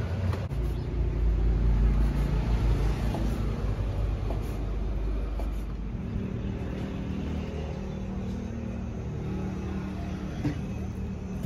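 A motor engine running nearby with a steady low rumble, loudest in the first few seconds and then fading.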